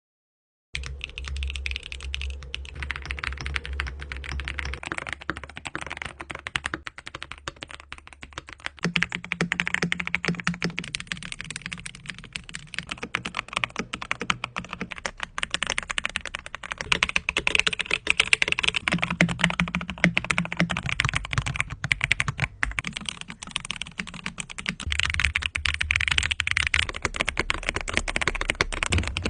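Fast, continuous typing on custom mechanical keyboards, a dense run of key clacks. The tone of the clacks changes abruptly every few seconds as one board gives way to the next.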